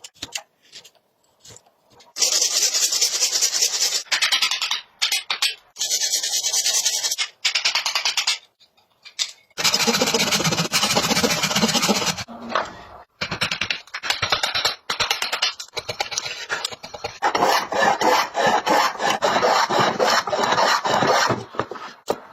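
A hand tool rasping across wood in bouts of quick strokes, each bout lasting about two to five seconds, with short pauses between them.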